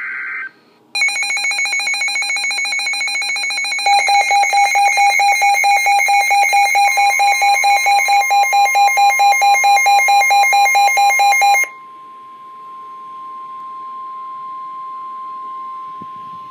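Weather radio severe thunderstorm warning alert. It opens with the end of a short burst of digital data, then a loud electronic alarm beeps rapidly, about four times a second, and stops about three-quarters of the way through. Partway in, the steady single-pitch warning alarm tone joins it and carries on alone, quieter, until near the end.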